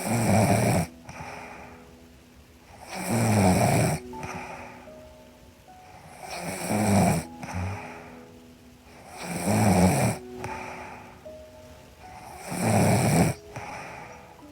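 A woman snoring in her sleep, one snore about every three seconds, five in all. Soft music with held notes plays underneath.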